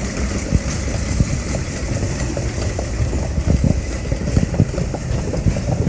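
Airport baggage carousel running: a steady low mechanical rumble with scattered irregular knocks.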